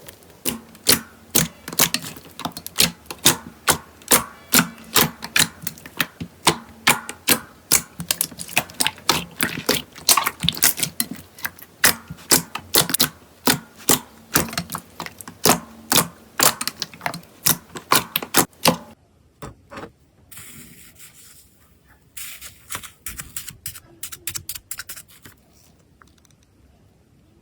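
Slime being squeezed and worked by hand, making rapid sticky clicks and pops at about three or four a second. About nineteen seconds in the clicking stops, and a sparser patch of crackling follows before it goes quiet.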